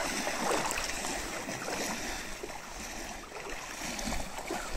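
Lake water lapping and sloshing in the shallows over a steady rushing noise.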